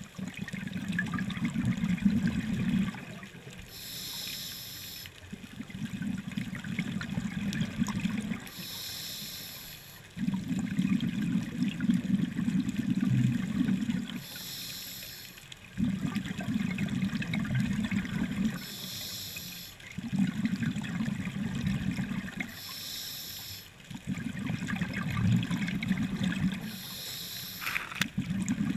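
A scuba diver breathing through a regulator underwater, about seven breaths. Each breath is about a second of hissing inhale through the regulator, then two to three seconds of low bubbling as the exhaled air escapes.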